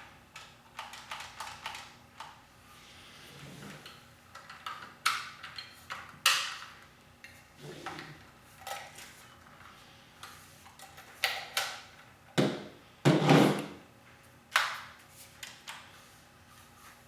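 Irregular clicks, knocks and rattles of hard objects being handled, with a few sharper knocks in the second half.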